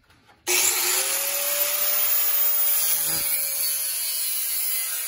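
Corded DeWalt angle grinder starting up about half a second in and cutting through a metal piece of the pocket-door frame: a steady motor whine under a loud, even hiss of the disc on metal.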